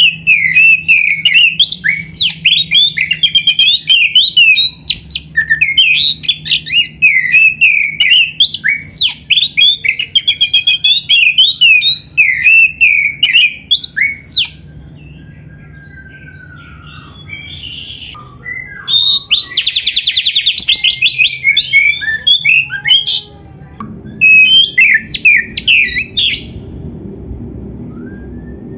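Oriental magpie-robin (kacer) in full song: loud, varied phrases of quick whistles sliding up and down, with a fast trill just past the middle. The song breaks off about halfway through and again near the end.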